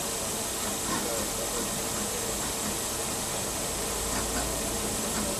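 Steady hiss of a laser cutter's air assist and fume filter running, with a faint steady tone. A low hum joins about four seconds in.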